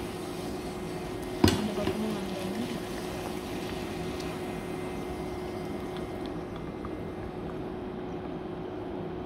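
Pooris deep-frying in hot oil, a steady sizzle under a steady low hum, with one sharp knock about a second and a half in.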